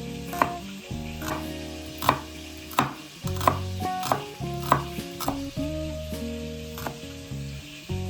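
Background music of sustained chords over a bass line, with sharp knocks every half second or so and a hiss of food frying in a pan.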